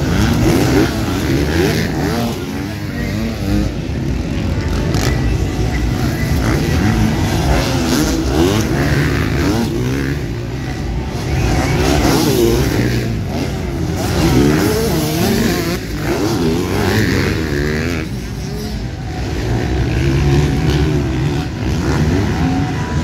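Several motocross bikes racing, their engines revving up and down in overlapping waves with no let-up.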